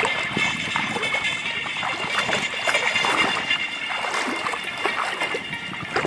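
Shallow sea water lapping at a sandy shoreline: small, irregular splashes and trickles over a steady hiss.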